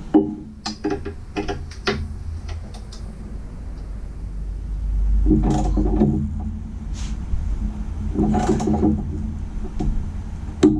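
Ratchet wrench with a 19 mm socket working the Jeep TJ's sway-bar mounting bolts: a few scattered clicks, then two short runs of rapid ratcheting, each about a second long, as the bolts are run down before torquing.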